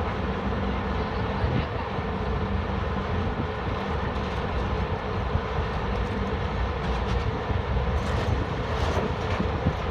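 Heavy diesel earthmoving machinery running steadily, with a constant low engine hum and a few faint clicks near the end.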